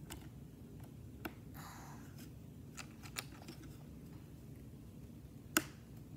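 Small plastic Lego pieces being handled and pressed together: a few light, faint clicks, with the sharpest snap about five and a half seconds in.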